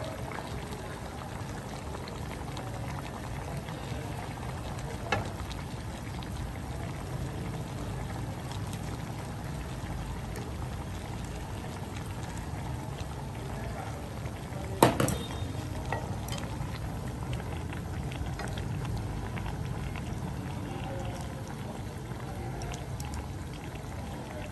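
Fish soup bubbling steadily in a wok on the stove. A small sharp knock comes about 5 seconds in, and a louder sharp knock about 15 seconds in.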